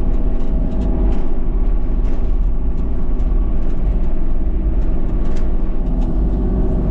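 Engine running steadily at a constant speed, with a strong low rumble and an even hum.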